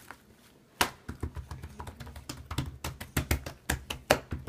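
Hands patting and pressing homemade slime flat on a wooden tabletop: quick, irregular taps and clicks beginning about a second in, a few of them louder.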